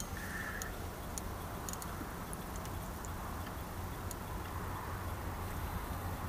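A few faint, irregular ticks from a spinning reel while a hooked carp is being played on the rod, over a steady low rumble.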